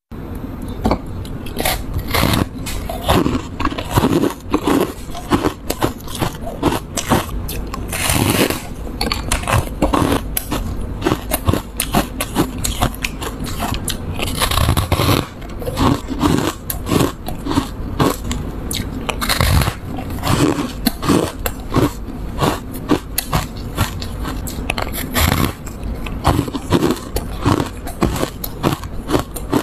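A person biting and chewing chunks of refrozen foam ice close to the microphone, with many sharp crunches in quick succession.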